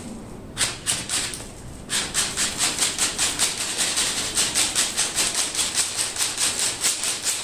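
Steel fish tape rattling and scraping inside the conduit as it is fed in with short, shaken jabs. A few separate scrapes are followed, about two seconds in, by a rapid, even clicking. The shaking vibrates the tape's head so that it slips past the lips of the conduit elbows instead of catching.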